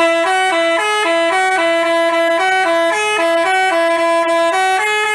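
Telolet basuri bus horn playing a melody: a quick, loud tune of short notes hopping between a few pitches, about three to four notes a second, starting suddenly.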